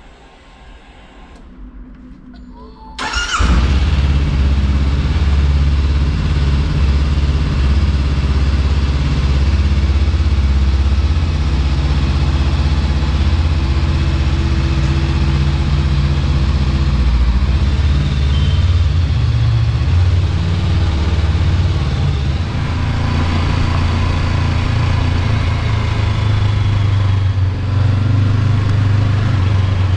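Honda CB500X's parallel-twin engine starting about three seconds in, then running steadily as the motorcycle rides off.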